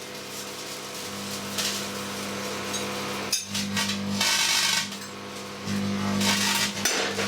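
Hacked twin-magnetron microwave running: the high-voltage transformers give a steady mains hum that swells and drops several times, with bursts of hissing crackle over it.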